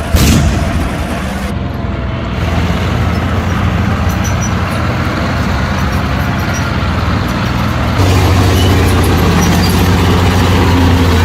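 A single loud blast just at the start, then a steady low engine drone, like a heavy vehicle's, that steps up louder about eight seconds in.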